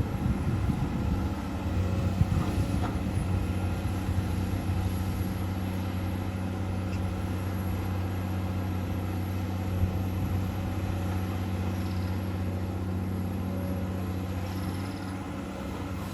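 Komatsu PC200-8 hydraulic excavator's diesel engine running steadily, with some clatter and knocks in the first few seconds.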